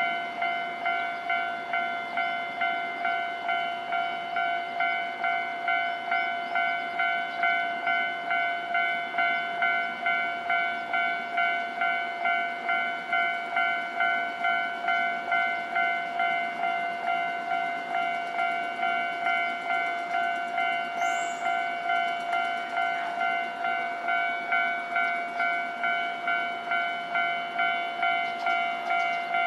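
Japanese level-crossing warning bell ringing on and on, an even electronic ding about twice a second. It signals that the crossing is closed for trains, here a crossing that seldom opens because of shunting moves.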